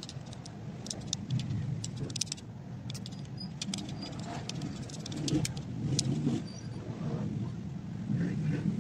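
Scattered small clicks and light rattles of fingers handling cord and a crystal stone being knotted into a pendant, over a steady low background rumble.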